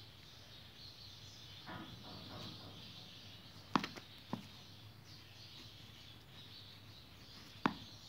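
Faint high chirping of birds in the background. A sharp click comes about four seconds in, a smaller one half a second later, and another near the end.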